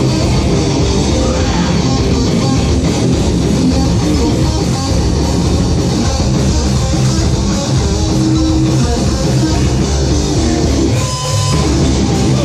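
A live rock band playing loudly: electric guitars, bass guitar and a drum kit, with a brief dip near the end.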